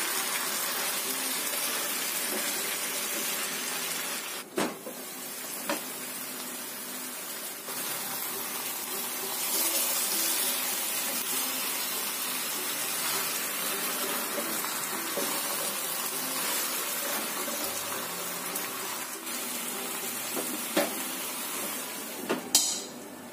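Whole chicken and a thick soy-sauce glaze sizzling and bubbling in a Happycall double-sided non-stick pan as the sauce cooks down, with spatulas scraping and knocking against the pan now and then. Near the end the pan's lid is shut with a clunk.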